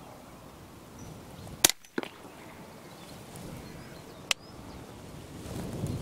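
A follow-up shot from a custom Ruger 10/22 .22 LR rifle firing subsonic hollow points into a wounded hooded crow: one sharp crack about one and a half seconds in, followed about a third of a second later by a fainter crack. A lighter sharp click comes a little after four seconds.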